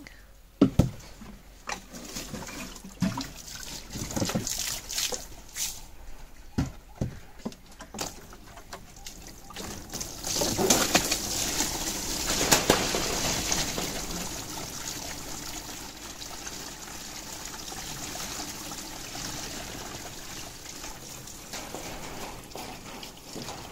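Water splashing and trickling as vervet monkeys play in a pool: a string of separate sharp splashes, then a louder stretch of splashing about ten seconds in, settling to a steadier wash of water.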